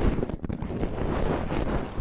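An ASMR brush or feather wand rubbing and sweeping directly over a binaural microphone, a dense rustling scratch with brief dips.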